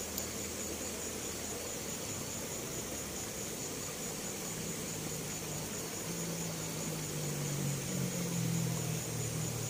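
Steady outdoor background hiss with a faint high steady whine, and a low hum that swells from about five seconds in and eases off near the end.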